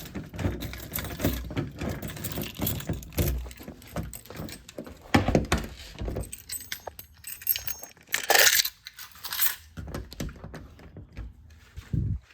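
Irregular jangling and clattering of small hard objects being handled, with a louder rustling burst about eight seconds in and a short low falling sound just before the end.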